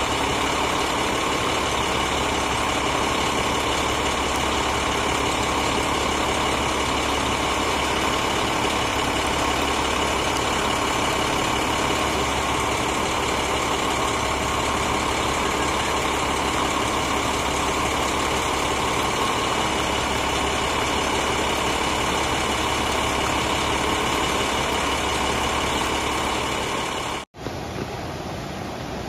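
A vehicle engine idling steadily, a constant drone with a steady whine over it. Near the end it cuts off abruptly and gives way to a quieter hiss.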